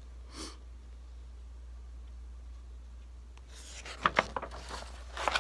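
A large picture-book page being turned: paper rustling and crackling in several short bursts, starting about three and a half seconds in, after a quiet stretch with a low steady hum.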